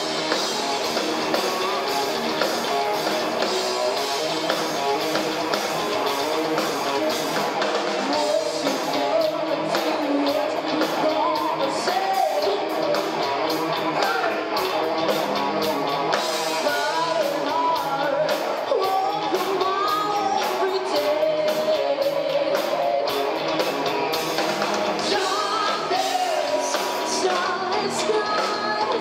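Live rock band playing a song on electric guitars, bass and drums, with a woman's lead vocal coming in about nine seconds in and carrying on to the end.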